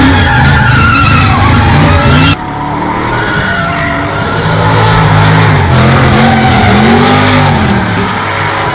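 A car doing a burnout: the engine revs up and down with its tyres squealing against the track. About two seconds in the sound turns suddenly quieter and duller, then goes on.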